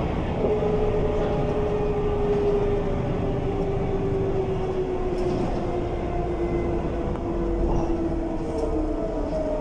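Mercedes-Benz O345 city bus with a ZF 4HP-500 automatic gearbox running under way: a steady low drivetrain rumble with a whine that falls slowly in pitch, as the bus slows.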